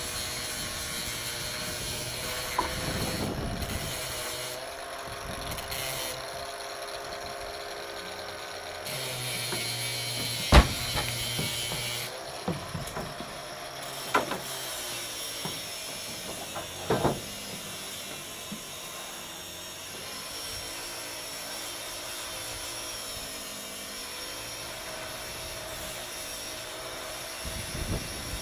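Steady machine hum that wavers slightly in pitch, with three sharp knocks, the first and loudest about ten seconds in.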